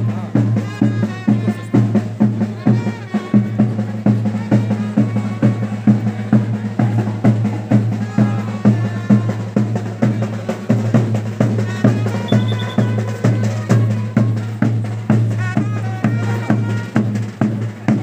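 Street brass band playing: bass drum and snare keep a brisk, steady march beat under a melody line and a held low note.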